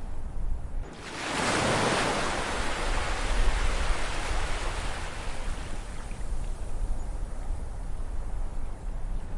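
Ocean waves breaking on a shore: one wave surges in about a second in and washes back, its hiss slowly fading over several seconds, over a steady low rumble.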